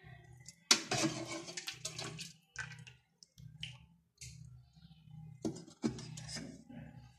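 A ladle scoops broth from a stainless steel pot and pours it over corn couscous in clay dishes, splashing in several short bursts. The hot cooking broth moistens the steamed bdaz.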